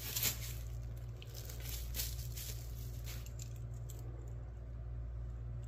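Faint handling sounds of a small package being opened: a light click near the start and a few soft ticks and rustles, over a steady low hum.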